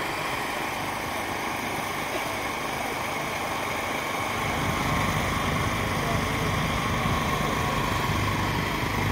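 Children's go-karts' small engines running steadily, with a low engine hum growing louder about halfway through as the karts come closer.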